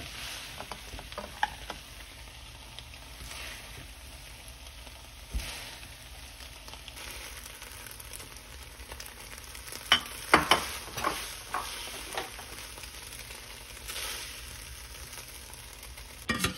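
Fusilli in tomato sauce sizzling in a hot frying pan while being stirred and scooped with a spatula, a steady hiss under it. Sharp scrapes and taps of the spatula against the pan cluster about ten to eleven seconds in, with a clatter near the end.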